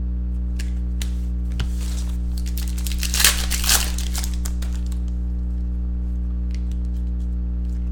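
A foil Panini Prizm football card pack being torn open and crinkled by hand, the ripping loudest about three to four seconds in, with a few light crackles before and after. A steady low electrical hum runs underneath.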